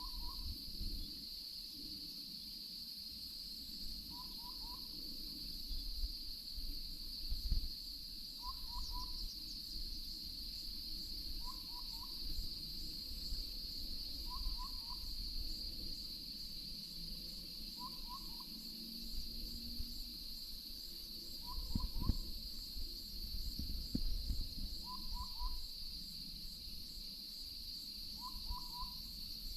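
A small owl giving short, paired whistled hoots about every three to four seconds, over a steady high insect drone, with a few low rumbles.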